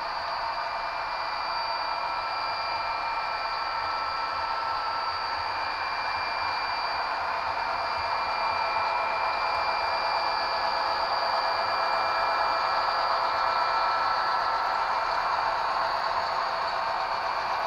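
HO scale model freight train running past: a steady whir from the locomotive motors and wheels on the rails, getting a little louder about halfway through as the locomotives come close.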